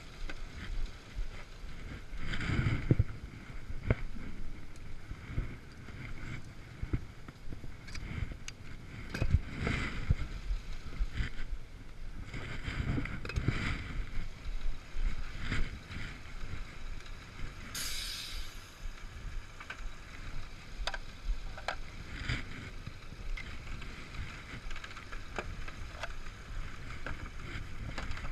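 Vehicle on the move: low rumble with swelling road and wind noise, and scattered clicks and knocks from the cab. A brief hiss comes about two thirds of the way through.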